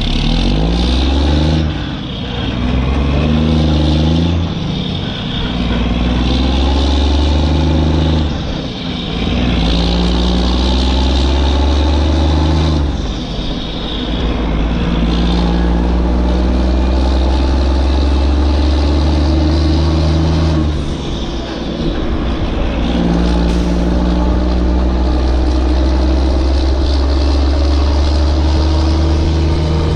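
Motor vehicle engine running and revving, its pitch stepping up and down in spells of a few seconds with short dips between.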